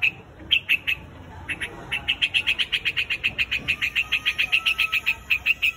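White-headed quạch mốc bird calling its flock: a few separate sharp calls, then from about a second and a half in a fast, continuous run of sharp repeated notes, about eight a second.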